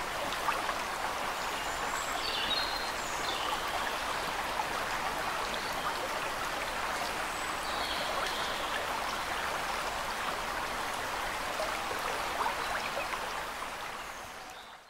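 Steady rushing of running stream water, with a few faint high chirps, fading out near the end.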